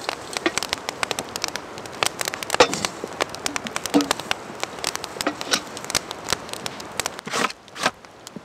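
Wood campfire crackling and popping in a dense run of sharp snaps. Near the end, a couple of longer, louder rustles.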